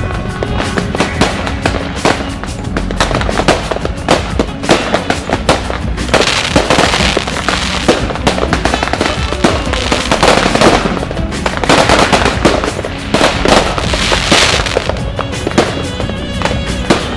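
Fireworks and firecrackers popping and crackling rapidly, with three swells of denser crackle.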